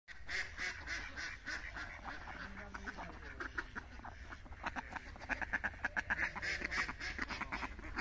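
Domestic ducks quacking in a rapid run of short calls, growing quicker and louder about five seconds in.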